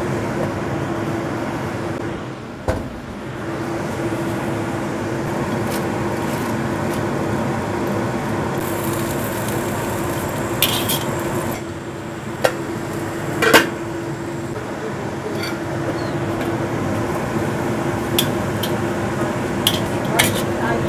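A wire skimmer clinking and scraping against a metal wok as pumpkin shoots are stirred in hot water. Several sharp clanks come about midway and again near the end, over a steady hum.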